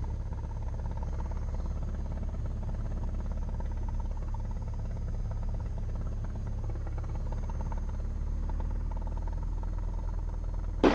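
Cessna 172M's four-cylinder Lycoming engine and propeller running steadily at low taxi power as the plane lines up on the runway, a constant low drone.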